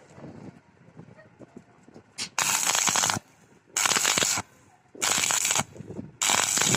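Stick-welding arc with a 6013 electrode, struck in four short crackling bursts of well under a second each, with brief pauses between: the electrode laid on in quick starts and stops, as in tacking or whip-and-pause welding. The first burst starts a little past the middle.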